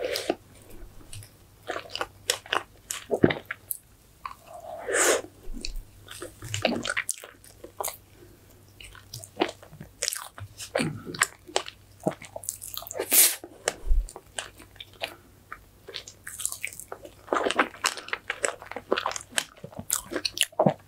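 Close-miked chewing and biting of strawberry fresh cream cake and its fruit topping: a steady run of wet mouth clicks and smacks, with a few longer, noisier chewing stretches.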